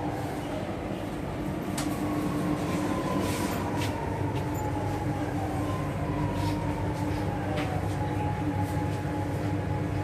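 Chennai Metro train running, heard from inside the carriage: a steady rumble and hum, with a motor whine that falls slowly in pitch over several seconds, and a few light clicks.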